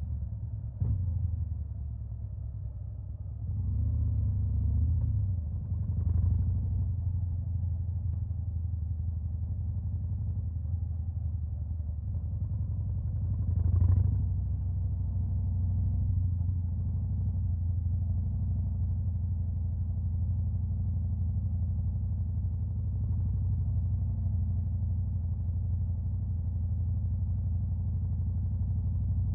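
Stage 2 Harley-Davidson Fat Boy's Milwaukee-Eight V-twin idling with a steady low rumble, given a few short throttle blips in the first half, the sharpest about halfway through.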